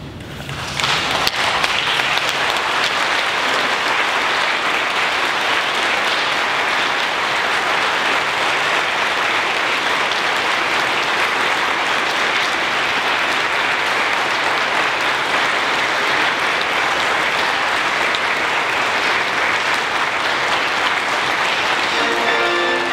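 Church congregation applauding steadily, starting about a second in; music comes back in near the end.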